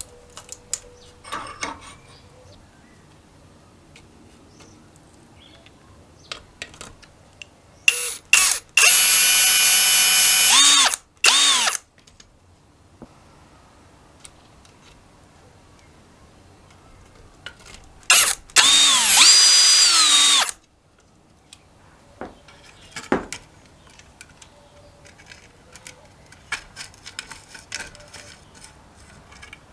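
Power drill run in two bursts, one of about three seconds and one of about two, its whine falling in pitch as it spins down each time. Between the bursts and after them come light clicks and handling noises.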